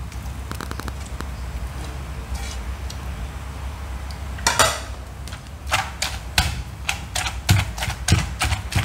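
Wooden pestle pounding in a clay mortar, mashing boiled fish into curry paste. Soft handling sounds come first; from about halfway, regular strokes come about three a second.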